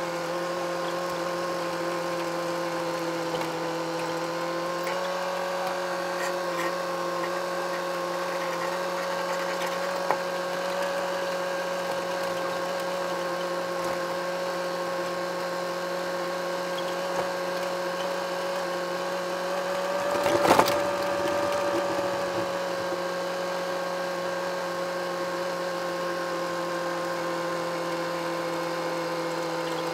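Massey Ferguson 265 tractor's three-cylinder Perkins diesel running at steady working revs while spraying, with a steady mechanical whine; the pitch rises slightly about five seconds in. A brief loud rattle comes about two-thirds of the way through.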